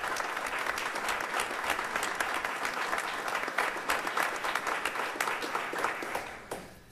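A roomful of people applauding, the clapping dying away near the end.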